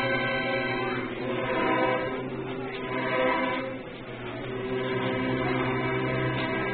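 Student string orchestra of violins and violas playing long held chords, with a busier passage in the middle and a brief softening.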